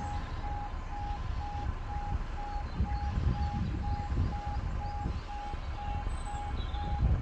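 E2S Apello level crossing alarm sounding a pulsed electronic tone, about three beeps a second, over a low rumble.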